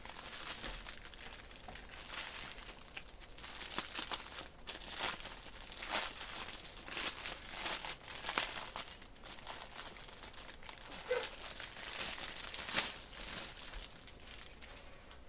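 Plastic packaging crinkling and rustling in irregular bursts as strips of small bags of diamond-painting drills are handled and unfolded.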